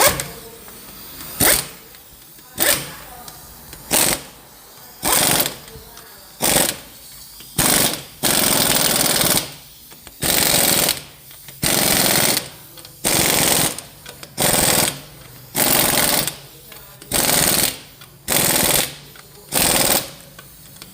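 Pneumatic air tool run in about sixteen loud bursts, roughly one a second, working on the Ford Ranger's suspension rubber parts; the bursts are short at first and last most of a second each from about eight seconds in.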